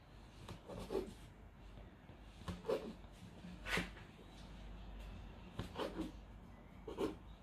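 Kitchen knife slicing through a rolled log of cinnamon-roll dough onto a silicone baking mat: a soft press-and-tap or scrape with each cut, about five cuts, one every second or so.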